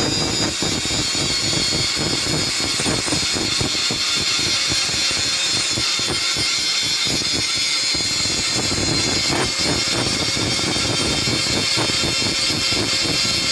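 Electric angle grinder with an abrasive disc grinding a weld bead off the steel tube of a Hyva three-stage hydraulic tipper cylinder, running steadily under load. The weld is being ground off so the cylinder stage can be drawn out without it tearing the seal kit of the next stage.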